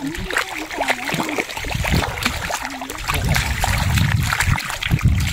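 Shallow water splashing as tilapia thrash at the surface while being caught by hand. The splashing grows louder and heavier about three seconds in.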